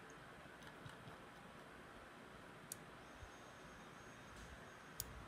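Near silence: quiet room tone with two sharp computer-mouse clicks, one about halfway through and one near the end.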